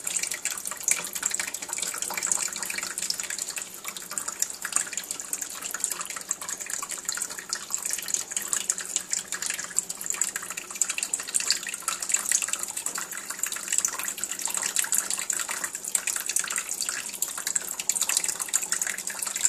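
Kitchen tap running steadily into a stainless steel sink, a constant splashing hiss of water.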